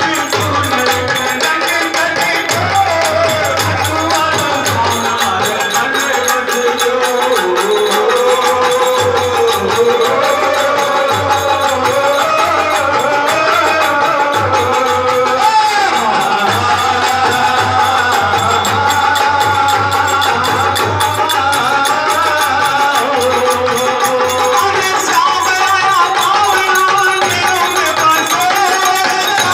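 Live Hindu devotional bhajan music: a harmonium plays a wavering melody over steady rhythmic hand percussion.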